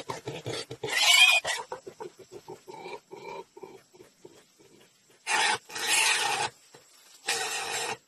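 A pig squealing and grunting in distress while being held down: a run of short, rapid grunts, a loud squeal about a second in, then three loud squeals in the last three seconds.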